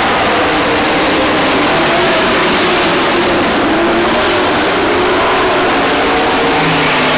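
A pack of dirt-track stock cars racing, several engines running together, loud and steady, their pitches shifting as they go round.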